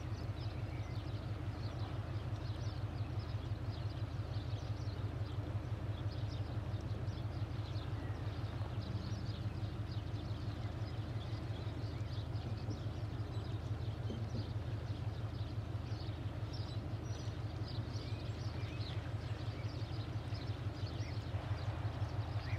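Deep, steady throbbing of a large ship's engines, a fast even pulse that does not change, with many short bird chirps over it.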